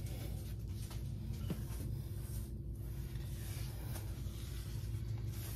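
Faint crackling and rustling of Ritz crackers being crumbled between the fingers into a glass measuring cup, over a steady low hum.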